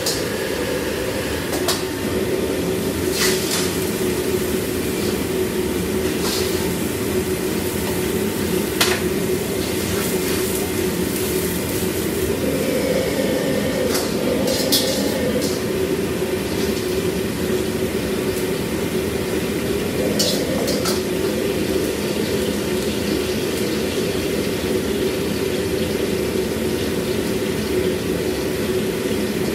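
Steady roar of a commercial kitchen's gas wok range, with scattered sharp clanks of metal ladles and utensils against woks and pots.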